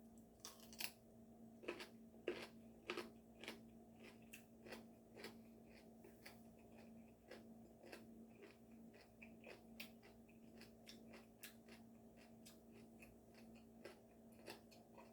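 Close-up chewing of crunchy food: a quick run of crisp crunches and clicks, loudest in the first three seconds, then lighter and steadier, over a faint steady hum.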